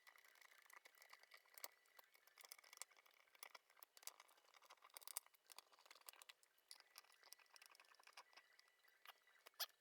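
Faint, irregular small clicks and ticks of screws being driven by hand into the plastic case of an AKAI MPK Mini keyboard, with a few slightly louder clicks here and there.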